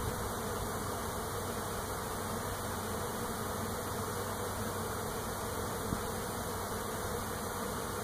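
A honeybee swarm in flight: thousands of bees buzzing in a steady drone as the swarm arrives at and moves into a new hive.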